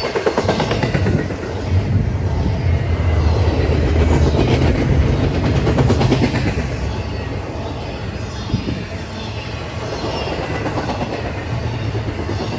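CSX double-stack intermodal freight train passing close by: a steady low rumble of steel wheels on the rails with rapid clickety-clack, and a faint high wheel squeal near the end.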